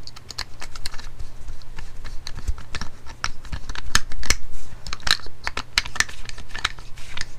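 Insulated screwdriver tightening the earth terminal screws inside a plastic CEE 16 A plug: a rapid, irregular run of small clicks and scrapes as the gloved hands handle the plug body, with the loudest knocks about four seconds in.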